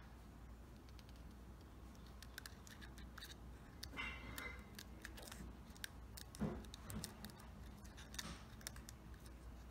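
Faint, irregular clicks and crackles of stiff plastic bottle petals being handled and pressed into place on a plastic flower, with a few short louder crackles partway through.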